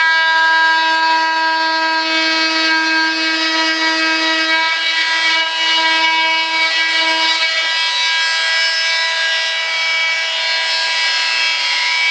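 Small handheld electric power tool sanding the rudder of a model jet, its motor giving a steady high whine at an even pitch.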